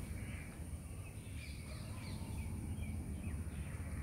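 Outdoor ambience: a steady low rumble with a few faint, scattered bird calls.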